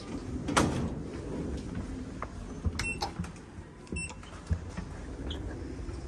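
Schindler passenger elevator riding and arriving: a low running rumble, a knock about half a second in, two short high beeps a second apart, then the car doors sliding open.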